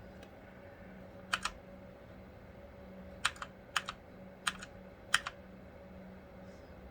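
Computer keyboard keys being pressed: five keystrokes, each a quick press-and-release double click, spaced irregularly about a second apart, over a steady low hum.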